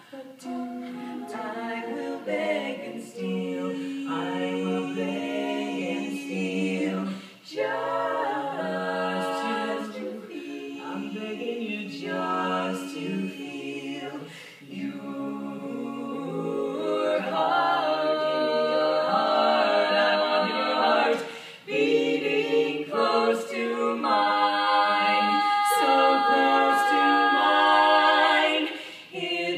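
Female barbershop quartet singing a cappella in four-part close harmony, holding long chords. The singing grows louder from about halfway through.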